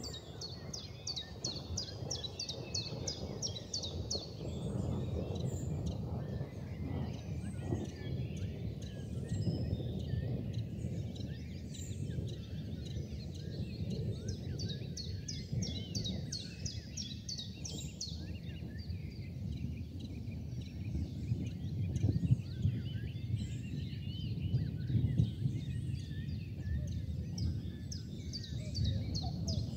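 Outdoor night ambience: a steady low rumble with runs of rapid high-pitched chirping, about eight chirps a second, that come three times for a few seconds each.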